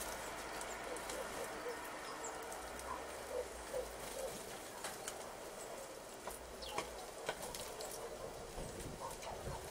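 Small birds at a sunflower-seed feeder, tits, giving brief high calls, with scattered short sharp taps. A few low coo-like notes come in the first half.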